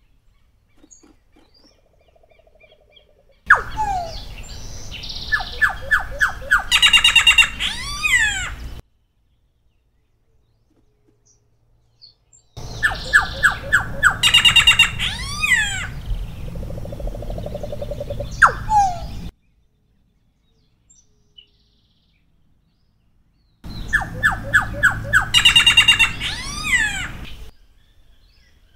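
Solitary black cacique singing three bouts of song a few seconds apart. Each bout is a run of short repeated notes, then a harsh rattling stretch and several whistled notes that swoop up and down.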